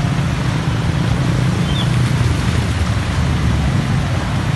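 Slow motorcycle traffic riding through muddy standing water on a potholed road: a steady low rumble of small engines and traffic.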